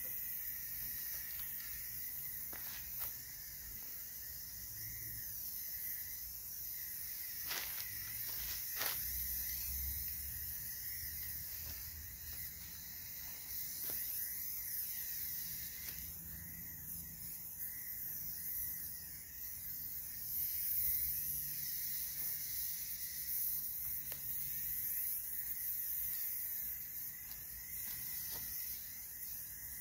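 Aerosol spray can of Krylon Color Max gloss black paint hissing as it is sprayed through a pistol-grip spray handle, with a couple of light clicks about eight and nine seconds in.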